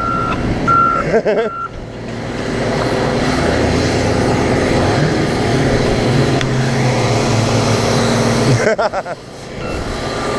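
A vehicle's reversing alarm beeps evenly for the first second or so and stops. A vehicle engine then comes up and runs steadily.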